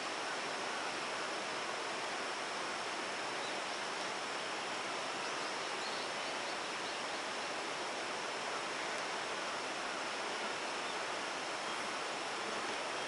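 Steady, even rushing of a mountain stream, with a thin, steady high-pitched tone above it and a few faint chirps.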